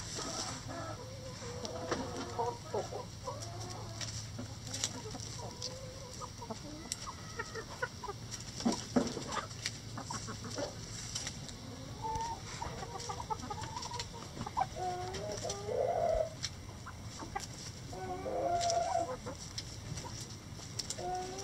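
Backyard chicken flock clucking softly while feeding, a scatter of short low calls, with a few louder, longer calls in the second half.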